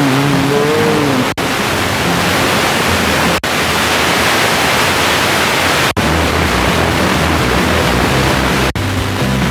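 Loud FM radio static, the hiss between stations, cutting out for an instant four times as the tuner steps to the next frequency. Faint traces of a station's audio show through the hiss, with a low pulsing bass in the second half.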